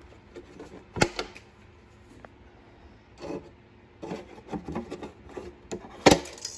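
Excess zip tie tails being snipped off, two sharp snips about five seconds apart, with rubbing and handling of the plastic ties and drum lid in between.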